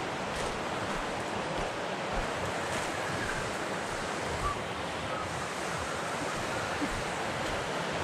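Steady rushing of a creek running fast over rocks.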